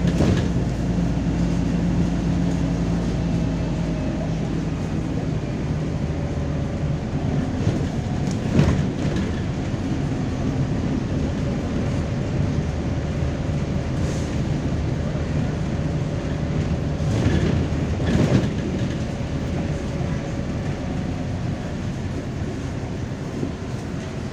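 Cabin noise of a MAZ-203 city bus under way: a steady engine and road rumble with a low drone. There are a few short knocks and rattles from the body, one about a third of the way through and two more a little past the middle.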